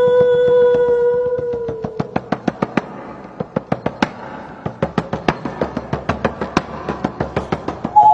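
A steady pitched tone that dips in pitch and fades out about two seconds in, followed by a run of sharp, irregular knocks, several a second.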